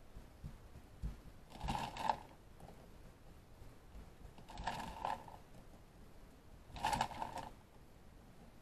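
Hands scattering raisins over sugared bread dough and pressing them in: soft rubbing and patting in three short bursts a couple of seconds apart, with a few faint taps in between.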